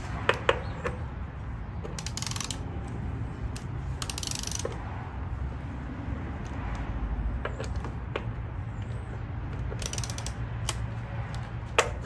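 Hand ratchet with a 10 mm socket clicking in short runs as the ignition coil pack bolts are loosened, with separate metallic clicks and clinks of the tools in between, over a steady low hum.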